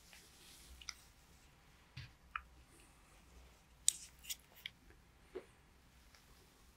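Faint, scattered clicks and light metallic taps from a handheld examination light and a metal nasal speculum being handled, about seven in all, the sharpest about four seconds in.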